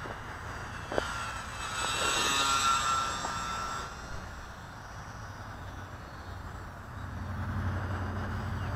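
E-flite UMX Pitts micro RC biplane's electric motor and propeller whining as it flies past close, swelling and fading between about one and a half and four seconds in. A click about a second in.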